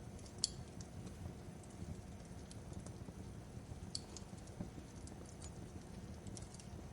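Crackling fireplace: a low, steady rumble of burning wood with scattered sharp pops and snaps, the loudest about half a second in and another about four seconds in.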